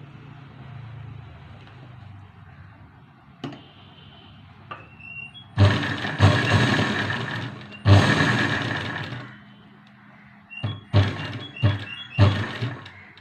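Saree cloth being handled and spread flat: two loud swishing rustles of the fabric, each starting suddenly and fading over a second or so, then several shorter, sharper rustles near the end.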